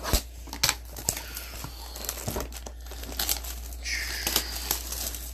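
Trading-card box packaging being handled and opened: crinkling and some tearing, with irregular sharp clicks and taps.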